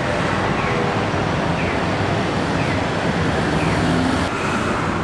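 Steady city street traffic noise, a constant wash of cars going by, with a faint short falling chirp repeating about once a second.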